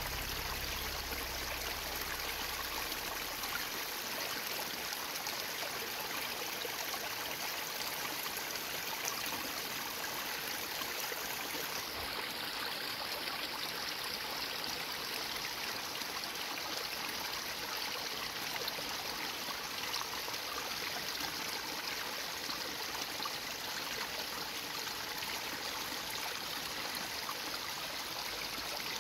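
Mountain creek flowing: a steady rush of water over stones.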